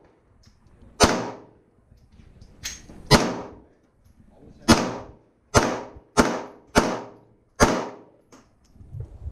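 Seven pistol shots from an Arsenal Firearms Strike One Speed. The first three are well spaced, then the last four come quicker, a little more than one a second, each trailing off in a short echo.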